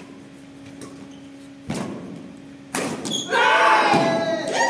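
Two sharp badminton racket strikes on the shuttlecock about a second apart, echoing in a large hall, followed by loud raised voices for just over a second as the rally ends.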